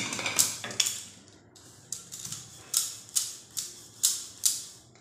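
Rolling out a stuffed paratha with a wooden rolling pin on a stone counter: a sharp click at each back-and-forth stroke, about two a second, with a short pause about a second in.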